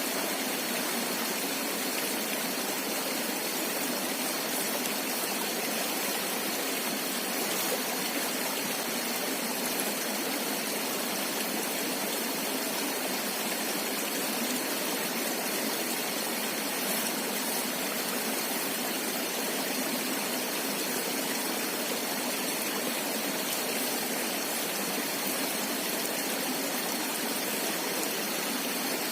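River water flowing steadily, an even rushing hiss with no breaks, and a thin steady high tone above it.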